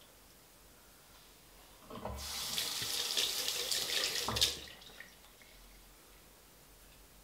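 Bathroom tap running into a sink for about two and a half seconds, starting about two seconds in and shut off with a low thump.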